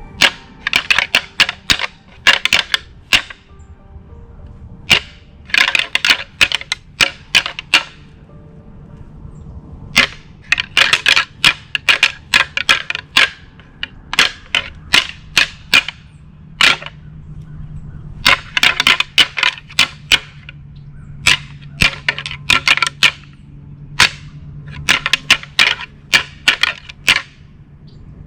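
Loud, sharp clacking in rapid runs of a second or two, about seven runs with short pauses between them.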